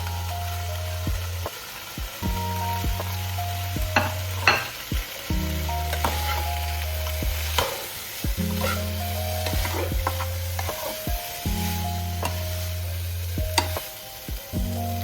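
Food sizzling as it fries in a pan, with a utensil stirring and clinking against it now and then, over mellow background music with a steady bass.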